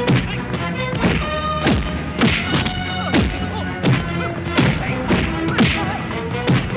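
Film fight sound effects: a rapid string of heavy punch and body-blow thuds, about two a second, several with a falling swish, over dramatic background music.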